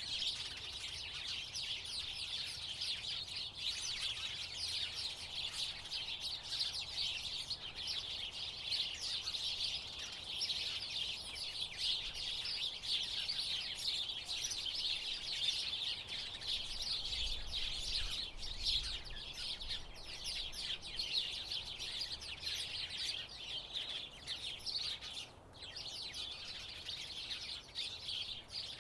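A flock of house sparrows chirping continuously, many short chirps overlapping in a dense chatter that thins briefly near the end.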